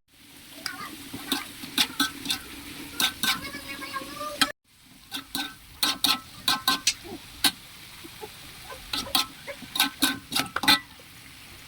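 Long beans stir-frying in a pan: a steady sizzle with repeated sharp knocks and scrapes of a spatula against the pan. It drops out briefly about four and a half seconds in.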